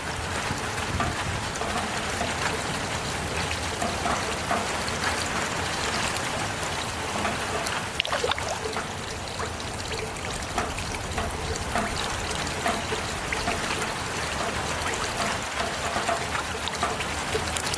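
Heavy rain falling steadily: a constant hiss dotted with many small drip and splash ticks, with a trickling, running-water quality.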